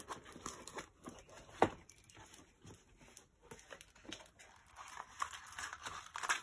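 Plastic film and backing paper of a rolled diamond painting canvas faintly rustling and crinkling as it is unrolled and flattened by hand, with one sharper crackle about a second and a half in.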